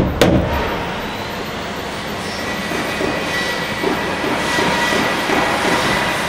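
A single hammer blow on a nail, driving it into a wooden door jamb, just after the start. It is followed by a steady mechanical rushing noise with faint high whines that ends abruptly near the end.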